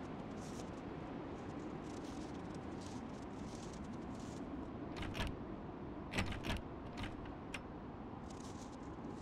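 Iron latch bar on a church door clacking and rattling as a gloved hand works it: a handful of sharp metal clicks in the second half, over a steady hiss.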